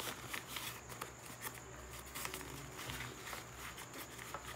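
Rustling and soft scuffing of a fabric laptop backpack being handled and opened, in short irregular crackles, over a low steady hum.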